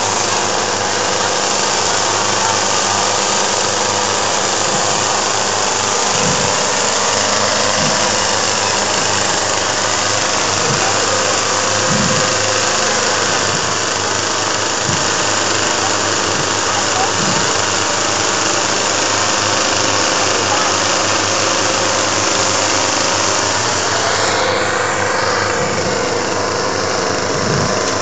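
Petrol chainsaws running at idle while being juggled: a loud, steady engine buzz.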